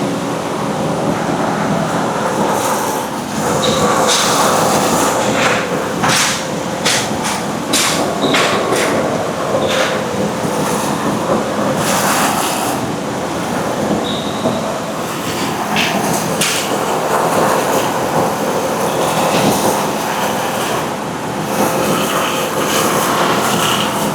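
Industrial production machinery running loudly and steadily: a constant hum with frequent irregular sharp clicks and clacks.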